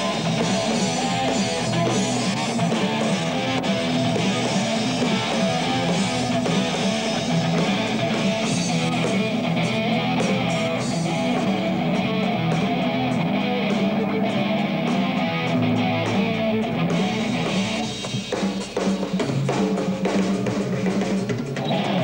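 Rock band playing: electric guitar, bass guitar and a drum kit driving a steady beat, dipping briefly about eighteen seconds in.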